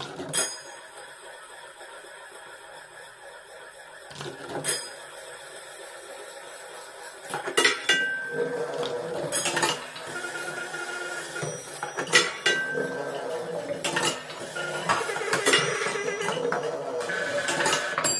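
Marbles running through a sound marble run made of tin cans, metal tubes and recycled objects: scattered metallic clinks and knocks, getting busier about halfway through, with a few short electronic tones mixed in.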